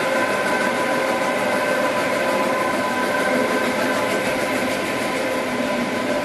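Dry offset cup printing machine running on a trial run: a steady mechanical whir with several steady whining tones over it.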